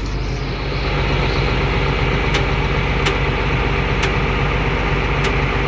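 Farm tractor engine running steadily at a low, even idle, with a few short light clicks over it.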